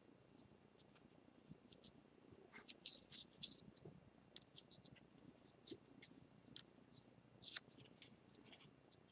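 Faint scratching and small light clicks of handwork on the pieces of a broken ceramic bowl being fitted together, scattered irregularly, with the strongest ticks about three seconds in and near the end.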